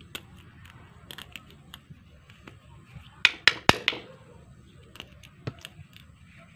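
Small plastic clicks and knocks as a PVC end cap is pushed onto and pulled off a PVC pipe, with a quick run of four sharp knocks about halfway through.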